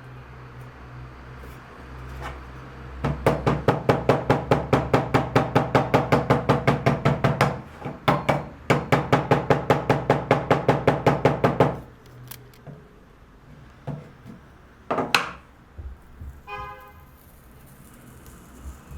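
Rapid, even tapping, about seven strokes a second, in two runs of several seconds each with a short break between. A few single knocks follow, then a brief high-pitched squeak.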